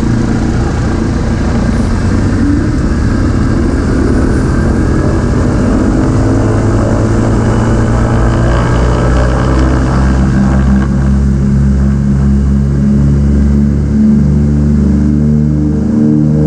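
A Douglas DC-3's twin Pratt & Whitney radial engines heard from the cockpit through slightly opened side windows, being throttled up on the runway for takeoff. A rough throb rises in pitch, then settles into a steadier, evener drone about two thirds of the way through.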